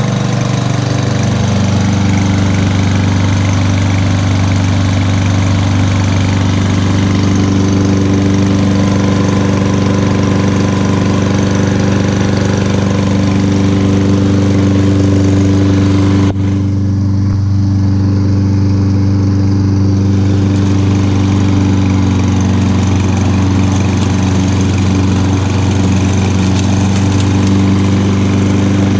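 Kohler Courage XT6 149 cc single-cylinder lawn mower engine running at a steady speed after being pull-started. The higher part of the sound briefly dulls about sixteen seconds in, then returns.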